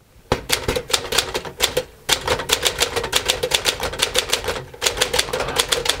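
A 1949 Smith-Corona Clipper manual portable typewriter being typed on: a quick, steady run of sharp keystroke clacks, several a second, with two brief pauses.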